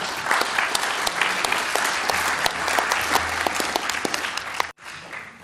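Audience applauding: dense clapping that stops abruptly about four and a half seconds in.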